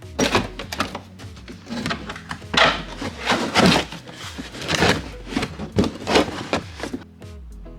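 Hand tools and car parts being worked and handled: a run of separate knocks, clatters and scrapes, roughly two a second, over background music.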